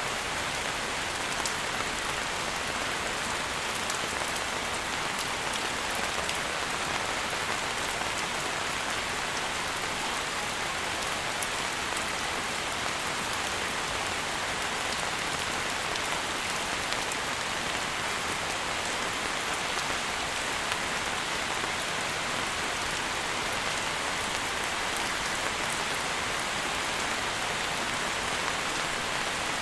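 Steady rain falling: an even hiss scattered with faint ticks of single drops.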